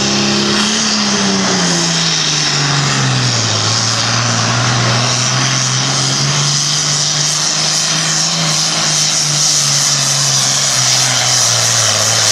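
John Deere 6030 pro stock pulling tractor's six-cylinder diesel engine running hard under load during a pull. Its pitch drops over the first three seconds and then holds steady, over a loud high rushing noise.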